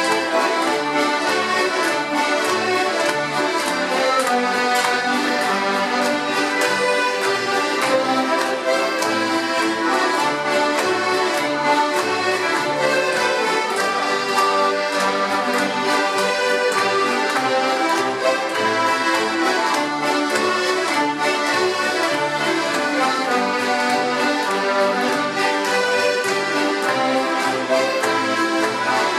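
Traditional folk dance tune played by a large group of fiddles together with an accordion and a double bass, over a steady bass beat.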